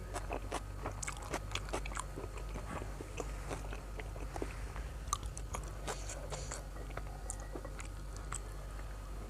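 A person chewing fried food close to the microphone, with many short crunching clicks that are thickest in the first couple of seconds and then thin out. A steady low hum lies underneath.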